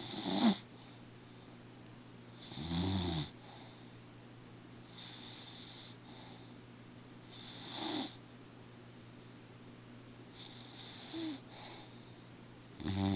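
Snoring: a short snore about every two and a half seconds, five or six in all.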